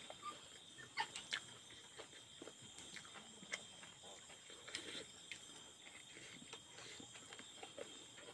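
Faint chewing and lip-smacking of a man eating rice with his hand from a steel plate, with scattered small clicks and smacks. A steady high whine sits in the background.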